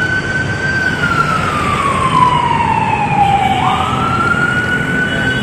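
Patrol vehicle's siren wailing over road traffic: a high held tone that slides slowly down for about two and a half seconds, then jumps quickly back up and holds high again. The wail is what he first took for an ambulance.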